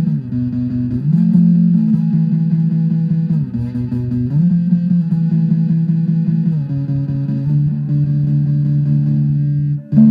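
Instrumental music: low, sustained guitar chords that slide from one pitch to the next every second or two. There is a brief break just before the end.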